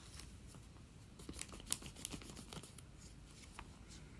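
Hockey trading cards being handled and set down: a cluster of light clicks and card-stock rustles between about one and three seconds in.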